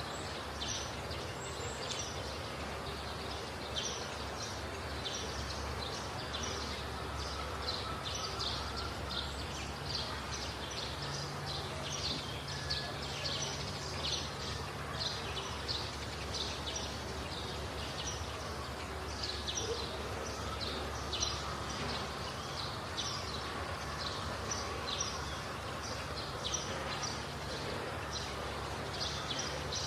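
Rural outdoor ambience: a steady background hum under many short, high-pitched chirps repeating about two or three times a second.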